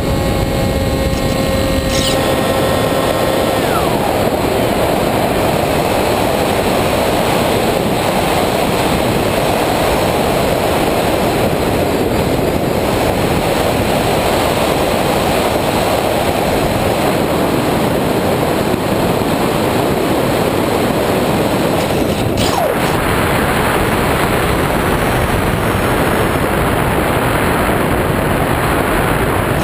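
Onboard audio of a small electric RC plane (Multiplex EasyStar II). For the first two seconds the motor and propeller whine, then the whine falls in pitch and stops as the motor spins down. From then on steady wind rushes over the airframe and microphone while the plane glides, with one brief tick about two-thirds of the way through.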